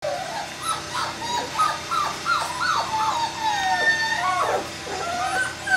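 Five-week-old puppies whimpering and yipping: many short, high cries that bend up and down and overlap, with one longer, drawn-out whine near the middle.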